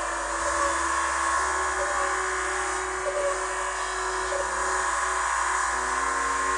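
Eurorack modular synthesizer sounding a sustained, buzzy drone of several held tones, with a low tone coming in about half a second in and a held note shifting pitch about five seconds in as knobs are turned. The patch includes the vocal-synthesis mode of a Mutable Instruments Plaits module, which is hard to hear through the rest of the patch.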